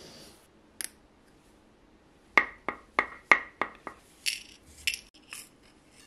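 A quick run of about six sharp clicks in a second and a half, followed by a few lighter ticks: small metal jewellery jump rings being handled and tapped against a steel bench block and a plastic box.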